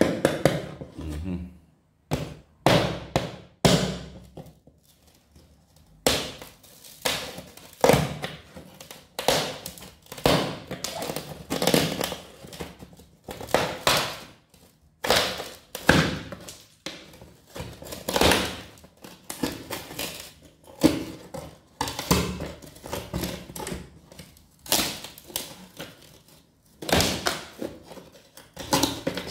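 A pointed metal tool tapping and knocking on glazed ceramic floor tiles in a long series of irregular knocks. The floor is being sounded for hollow spots where the tiles have come loose from the bed beneath.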